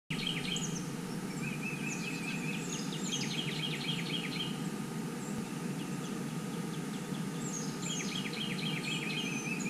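Songbirds singing, quick chirps and trilled phrases in one bout in the first half and another near the end, over a steady low background noise.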